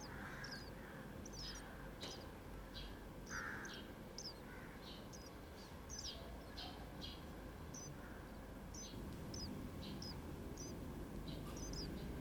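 Sparrow nestlings chirping in a nest box: short, high chirps, one or two a second, irregularly spaced, over a low background rumble.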